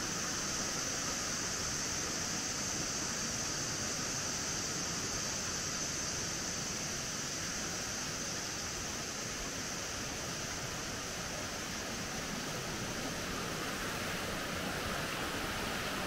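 A rocky forest river rushing over stones, a steady, even rush of water, with a steady high-pitched drone above it.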